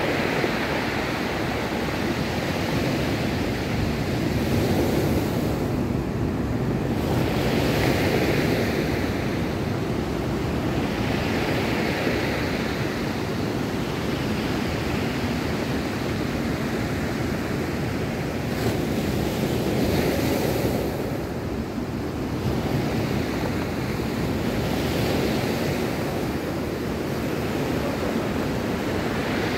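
Ocean surf breaking and washing up a steep cobble beach: a continuous rush that swells with each wave every few seconds and eases between them.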